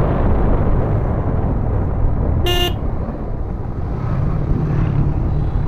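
Steady wind and road rumble of a moving motorcycle, with one short vehicle horn toot about two and a half seconds in.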